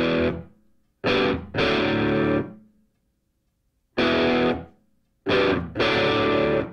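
Music track of distorted electric guitar chords, struck in short groups and let fade, with brief silent gaps between them.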